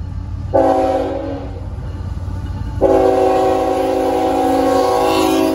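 CSX diesel freight locomotive approaching close by, its chime horn sounding a short blast about half a second in and then a long blast from about three seconds in, over the steady low rumble of the engine and train.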